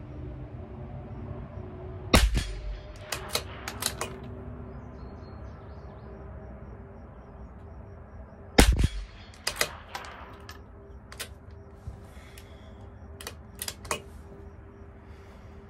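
Two shots from a CZ 457 LRP bolt-action .22 LR rifle, about six seconds apart, each followed by a run of metallic clicks as the bolt is worked to eject the case and chamber the next round; a further few bolt clicks come near the end.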